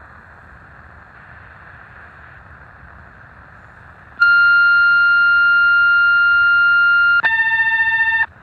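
Tecsun PL-660 shortwave receiver hissing with static on the 2130 kHz railway radio channel. About four seconds in, a loud steady high tone signal comes over the channel. About three seconds later it switches abruptly to a lower, wavering tone, which cuts off about a second later.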